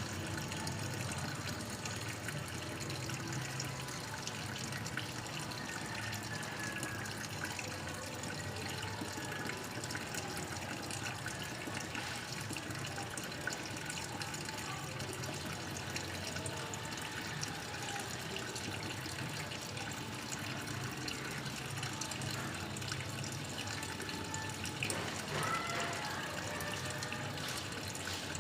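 Water running steadily from the supply into an automatic washing machine's tub as it slowly fills before the wash starts.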